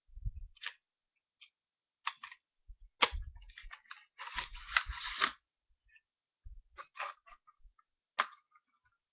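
Phone case in its retail packaging being handled and unpacked: scattered clicks and taps, with about a second of rustling a little after four seconds in.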